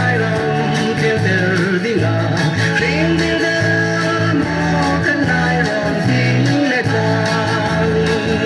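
Song with singing over guitar and a steady bass line.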